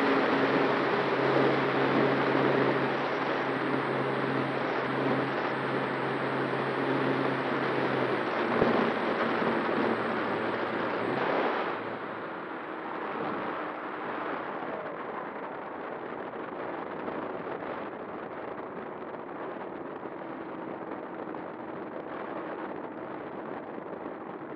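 Wind rushing past an RC plane's onboard camera, with the steady hum of its electric motor and propeller. The hum fades about eight seconds in, and a few seconds later the whole sound drops quieter and duller.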